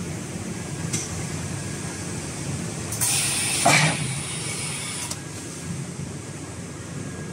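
Radio-frequency PVC welding machine running with a steady hum and a faint click about a second in. About three seconds in, a loud hiss of air lasts about two seconds, typical of the welding press's pneumatic release as the weld cycle ends.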